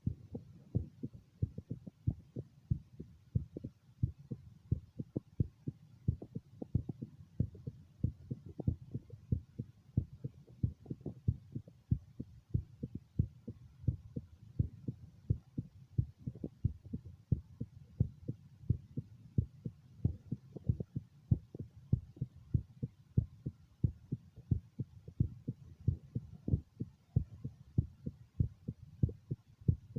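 Human heartbeat heard through a stethoscope over the mitral area of the chest: a steady, regular lub-dub of short, low thumps.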